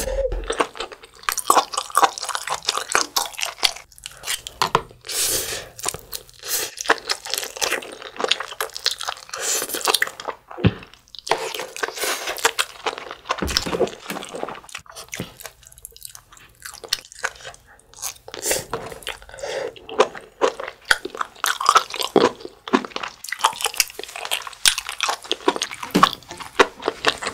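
Close-miked eating sounds: chewing with wet smacks, crunches and clicks as spicy instant noodles are eaten, with a few short pauses between mouthfuls.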